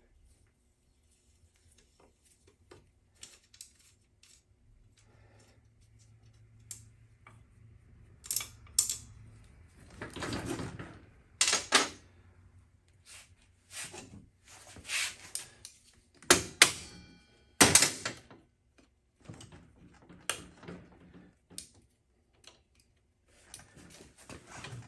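Hand tools working on a bare Honda XL70 minibike frame: scattered metallic clicks, taps and knocks, with louder clanks in the middle stretch, as bolts are loosened to remove the rear brake stay.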